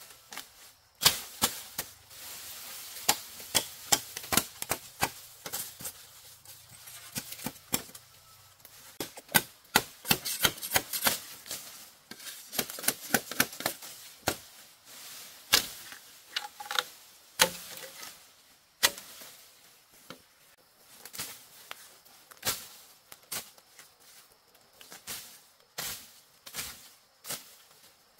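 Sharp, irregular cracks and knocks of a blade chopping at woody stalks such as bamboo, some coming in quick runs.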